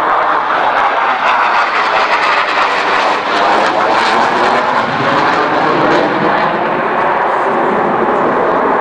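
Jet noise from an F-22 Raptor's twin Pratt & Whitney F119 turbofans as the fighter manoeuvres overhead. The noise is loud and steady, with a ragged crackle through the first few seconds.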